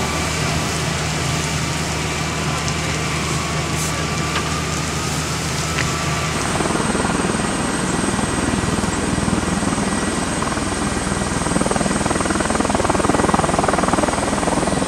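Flight-line aircraft noise: a steady low machine hum, then after a cut about six seconds in, a louder even rushing noise with a thin high whine.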